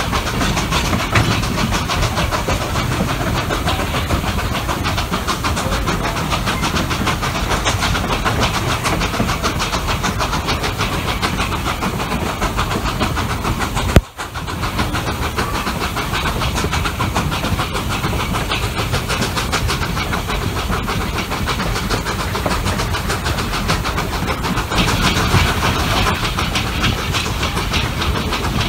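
Narrow-gauge steam train running, heard from an open gondola car: a steady rush of wheels clacking on the rails and the K-36 steam locomotive No. 481 working. A sharp click and a momentary break about halfway through.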